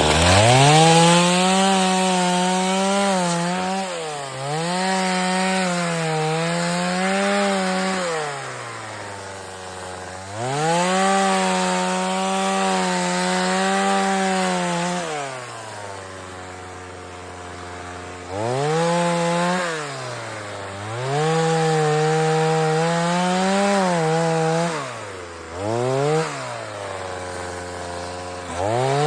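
Chainsaw cutting wood, revved up to full throttle for several cuts of a few seconds each and dropping back to idle between them.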